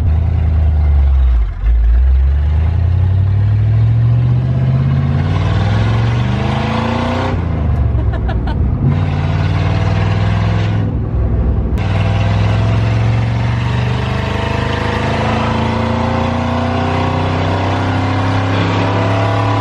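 Old Ford F100 pickup's engine, heard from inside the cab and running loud with its exhaust taken off, accelerating: its pitch climbs, drops twice as it shifts up (about seven and eleven seconds in), then rises slowly again.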